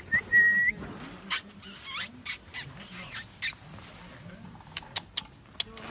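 Husky puppy giving a short, high squeaky whine, followed by a quick run of short scratchy noises.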